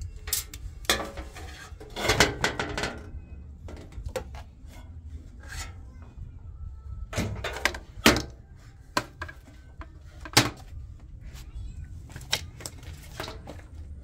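Sharp clicks and clattering knocks from an LG front-loading washing machine's front panel as it is worked loose with a screwdriver and lifted off, heard over a steady low rumble.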